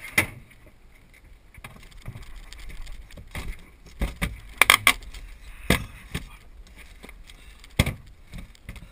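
Schweizer 1-34 glider rolling out over rough grass after landing: a low rumble with sharp knocks and rattles as the airframe bumps over the ground, one just after the start, a cluster about four to five seconds in, and another near the end.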